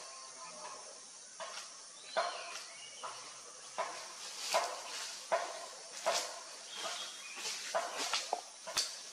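Slow footsteps crunching on dry leaf litter, about one crunch a second, over a steady high hiss.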